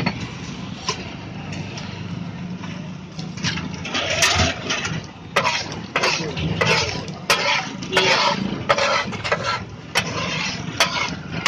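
Metal spatula scraping and clanging on a large flat iron tawa as thick pav bhaji is spread and worked across it, the sharp clangs coming about once a second from about four seconds in. A steady low hum runs underneath.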